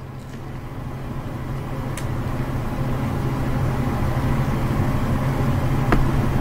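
A steady low hum that slowly grows louder, with a faint click about two seconds in and another near the end.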